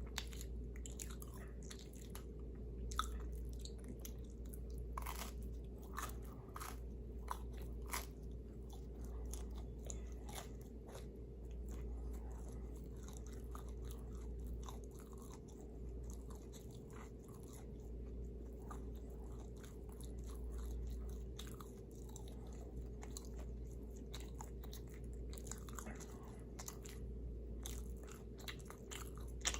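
Close-miked eating of pizza: biting and chewing with irregular crisp crunches and small mouth clicks, over a steady low hum.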